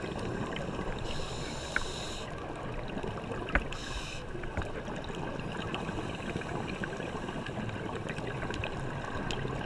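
Underwater reef ambience recorded on a dive: a steady watery rumble with many small scattered clicks and crackles and one sharper click about three and a half seconds in. Two short high hisses come near the start and about four seconds in.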